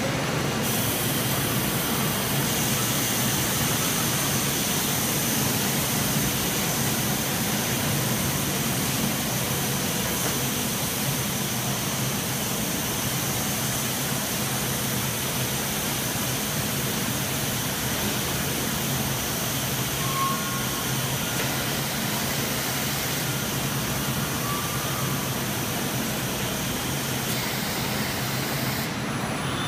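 Steady machinery noise of a robotic palletizing cell, with the industrial robot arm and roller conveyor running: a constant low hum under an even hiss, with no pauses.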